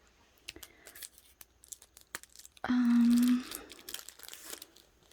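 Plastic packaging and card sleeves crinkling and rustling as they are handled and pulled open, with a loud, short, steady hum about three seconds in.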